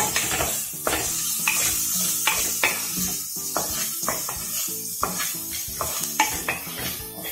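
Chopped onions sizzling in hot oil in a non-stick kadai as they are sautéed. A wooden spatula stirs them, scraping and tapping against the pan about twice a second.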